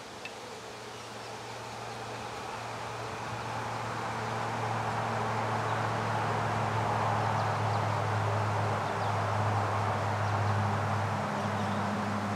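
Swarm of Saskatraz honey bees buzzing around an open hive, a steady many-winged hum that grows louder over the first few seconds and then holds.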